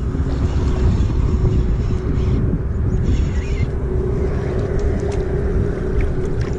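Wind buffeting the camera microphone, a steady low rumbling noise, with a steady hum running through it.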